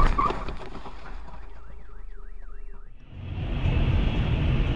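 A car alarm wails in fast rising-and-falling sweeps, about four a second, right after a collision, while the last debris clatter dies away. About three seconds in it gives way to steady road and rain noise from a car driving on a wet road.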